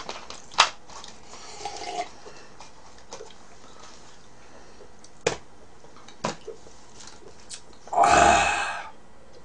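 Plastic Coca-Cola bottle being opened and handled, with a few sharp clicks, then a loud slurping sip from a glass lasting about a second near the end.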